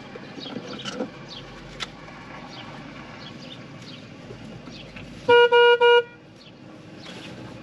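A car horn honking three quick times, about five seconds in, over steady outdoor background with short falling chirps.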